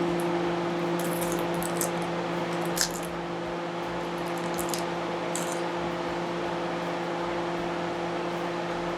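A steady appliance hum in a kitchen, with a few faint soft squishes and scrapes as soft cheese is spooned into a pie filling.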